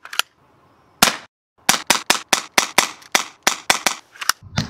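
Black air pistol making sharp snaps: a single snap, a louder one about a second in, then a quick even run of about a dozen, roughly five a second.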